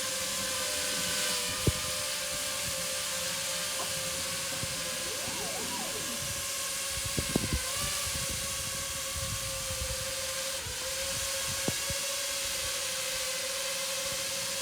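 Drone rotors humming at a steady pitch, with wind rushing and buffeting the microphone and a few sharp clicks.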